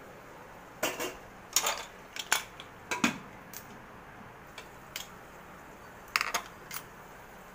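Metal ladle clinking and scraping against the side of an aluminium pressure cooker in irregular knocks, some in quick clusters, as masala is stirred while it roasts.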